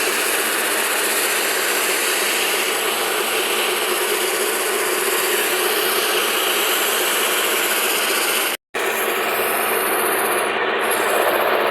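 Wooden dhol shell turning on a running lathe while sandpaper is held against it: a steady machine hum under a continuous sanding hiss, with a brief break about three-quarters of the way through.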